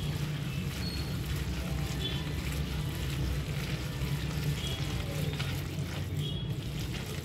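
A hand squishing and mixing wet spinach, onion and gram-flour (besan) bhajiya batter in a ceramic bowl, over a steady low hum.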